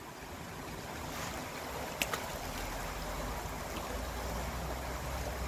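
Small stream running steadily over stones, with a single sharp click about two seconds in and a low rumble coming in from about halfway.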